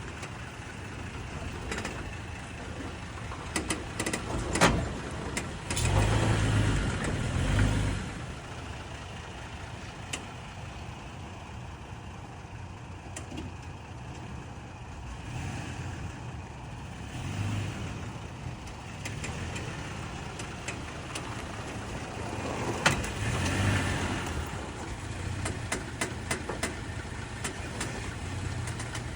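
Toyota Tacoma pickup giving off sharp pops and creaks at irregular moments over its steady engine hum. The pops cluster around four to five seconds in, again near twenty-three seconds, and several times near the end, with two louder rumbling swells in between.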